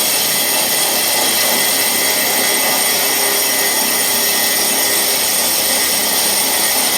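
CNC router running with a steady high-pitched whine and hiss.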